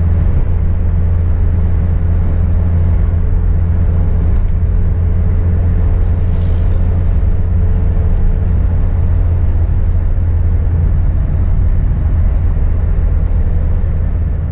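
Steady engine and road drone inside a Volkswagen Kombi van cruising at highway speed, a constant low drone with a faint steady hum above it.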